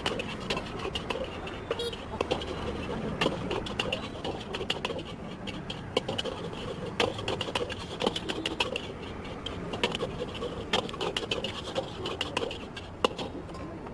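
Metal spatula clanking and scraping against a wok in irregular sharp strikes, over a steady background hiss.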